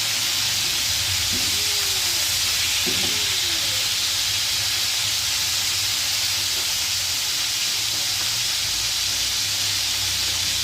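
Chicken thighs frying in a hot pan, a steady, even sizzle as the pieces brown.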